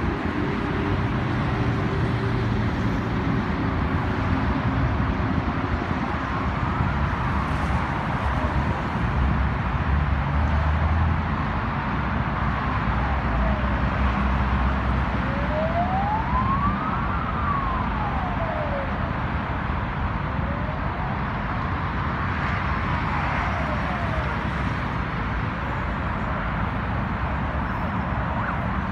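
Steady traffic noise from a busy multi-lane highway. An emergency vehicle's siren wails through it, slowly rising and falling, for most of the middle of the stretch.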